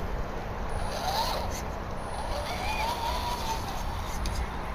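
Electric motor and gears of an RC rock crawler whirring as it creeps up a wooden plank ramp, the whine rising and falling twice with the throttle, over a steady background rush.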